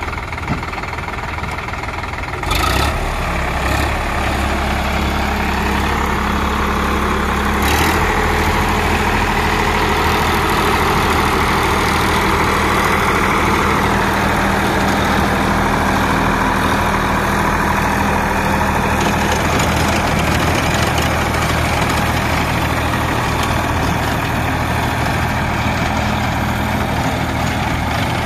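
Sonalika tractor's diesel engine running under load while it pulls a rotavator through the soil. The engine note steps up about two and a half seconds in and shifts again near eight seconds, each time with a short sharp knock, then holds steady.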